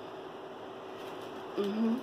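A woman chewing a mouthful of food, with a few faint mouth clicks and a short rising closed-mouth "mm" near the end, over a steady background hiss.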